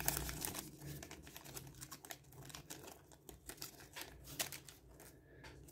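Foil trading-card booster pack wrapper crinkling as it is peeled open by hand: a run of faint crackles, busiest at first and thinning out toward the end.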